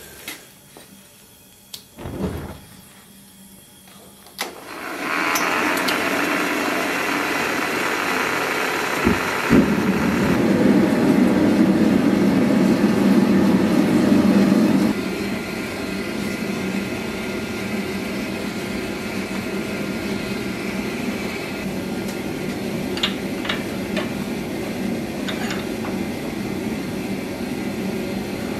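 Gas forge burner lit and running with a steady rushing noise, heating a knife blade toward hardening temperature. It starts about four seconds in after a few clicks, grows louder for several seconds, then settles at a steady level, with a few light metal clicks late on.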